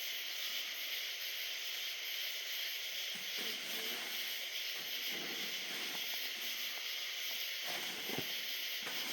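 Steady high-pitched hiss of a night-time insect chorus, holding even throughout, with a few faint soft knocks near the end.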